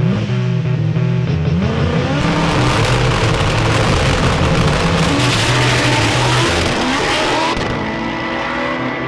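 Drag race car accelerating hard, its engine note rising in pitch, with background music playing underneath.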